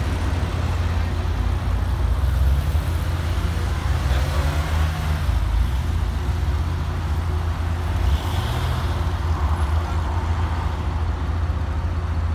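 Porsche sports car engines idling in a queue, with a car pulling away and its engine note rising briefly at times. The idle makes a steady low rumble throughout.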